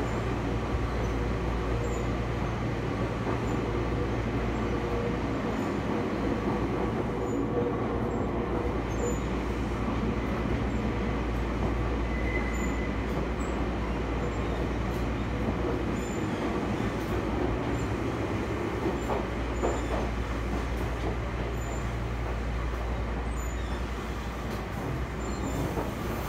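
Toyama Chiho Railway 20020 series (ex-Seibu New Red Arrow) electric train running, heard inside the car as a steady rumble of wheels and traction motors, with a brief knock about three quarters of the way through. The uploader says its running gear, reused from the original Red Arrow, makes the motor noise and sway very loud.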